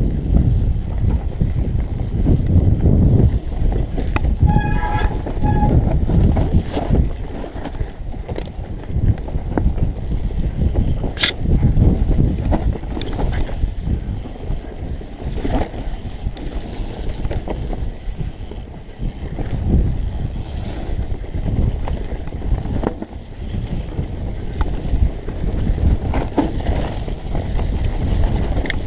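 Mountain bike ridden fast down a dirt forest trail: wind buffeting the microphone over the rumble and rattle of the bike, with sharp knocks from roots and bumps. A brief pitched tone sounds about five seconds in.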